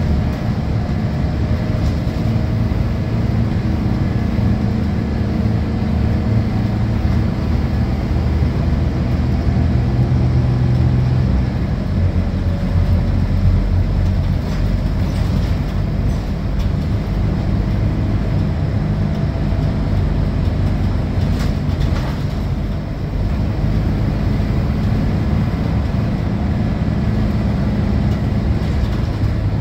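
Scania K230UB city bus's rear-mounted 9-litre five-cylinder diesel engine and ZF Ecomat automatic gearbox, heard from inside the passenger cabin at the rear while driving, with road and body noise. The engine note drops a step about twelve seconds in.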